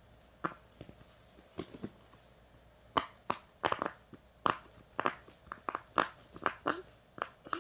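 Silicone push-pop bubbles of an octopus fidget toy pressed one after another, each giving a short sharp pop. A few scattered pops at first, then quicker, about three a second, from about three seconds in.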